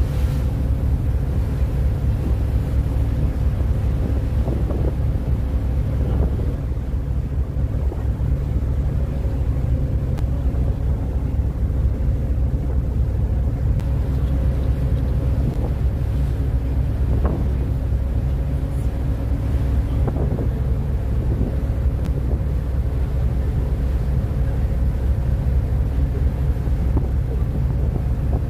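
Ferry's engine running with a steady low drone and an even hum, while wind buffets the microphone.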